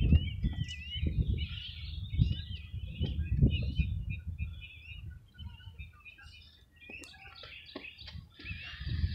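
Small birds chirping in quick, short notes, busiest in the first few seconds and again near the end. Under them, wind buffets the microphone in low, gusting rumbles.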